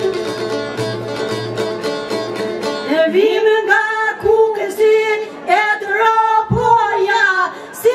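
Albanian folk music on a long-necked plucked lute, picked fast, with a hand-held frame drum. About three seconds in, women start singing over the lute, with a few drum beats under the voices.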